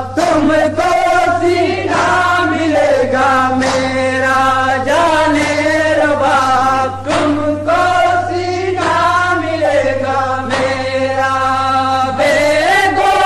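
Male voices chanting a nauha, a Shia lament, in chorus in long held phrases, with a steady low hum underneath.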